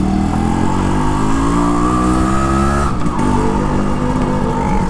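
Restored Yamaha RX100's two-stroke single-cylinder engine pulling under acceleration, its pitch rising for a couple of seconds, then dropping sharply at an upshift about three seconds in and running on steadier.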